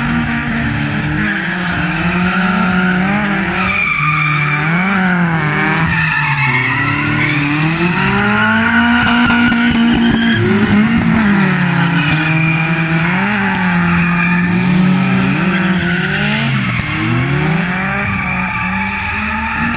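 BMW E36 318is four-cylinder engine revving hard as the car drifts, the revs rising and falling over and over, with tyre squeal at times.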